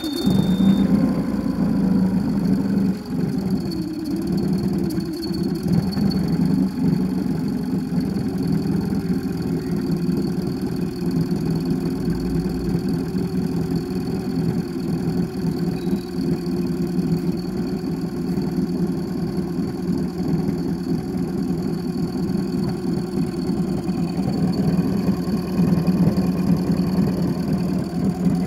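2021 Mercury 10 hp EFI FourStroke outboard, catching on its first start and then idling steadily with its lower unit in a barrel of water. Its pitch drops and settles over the first few seconds after it fires.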